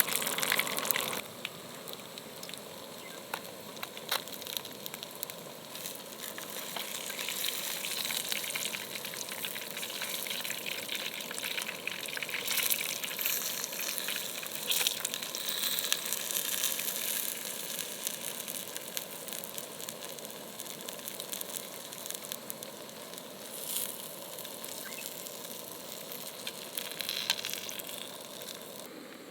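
Food, most likely the freshly caught fish, frying in hot oil, sizzling with a dense steady crackle. A louder rushing sound stops abruptly about a second in.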